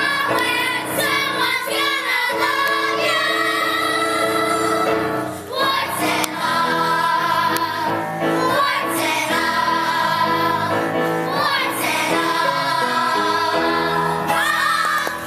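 Cast singing a musical-theatre number together over instrumental accompaniment, with a brief dip about five seconds in.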